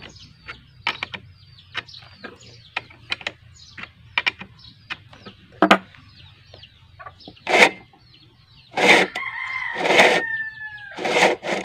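A rooster crows about nine seconds in: one long call that bends down in pitch at its end, with loud bursts of noise around it. Before the crow there are scattered short clicks and taps and small-bird chirps.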